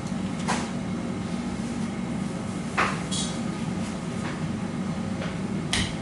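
Steady machine hum, with a few sharp clicks and knocks of kitchen equipment, the loudest about three seconds in.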